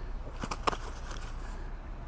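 A few short rustles and clicks about half a second in, over a low steady rumble: a carp being handled in a landing net's mesh on an unhooking mat.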